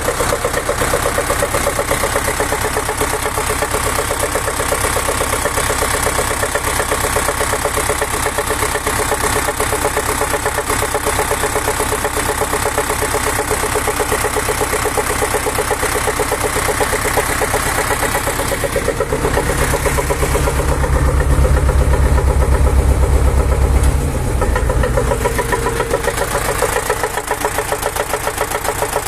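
YuMZ-6 tractor's four-cylinder diesel idling with a rapid, steady metallic knock. The owner hears the knock from under the valve cover, even though the valve clearances have been checked. A louder, deeper hum comes in for a few seconds past the middle.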